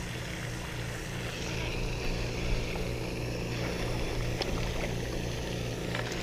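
Steady low hum and hiss from the pond's spraying fountain, with a few light clicks and a small splash near the end as a released fish drops into the water.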